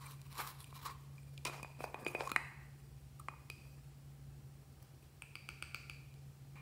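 Small plastic cosmetic jars handled over a glass dish: scattered light clicks and taps, a cluster of knocks about two seconds in, then a quick run of light ticks near the end as purple glitter is shaken out of a jar.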